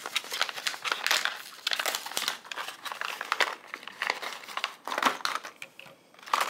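A yellow plastic Diamond Art Club tool-kit pouch crinkling and rustling as it is unrolled and opened by hand. The crinkling comes in irregular bursts, with a short lull shortly before the end.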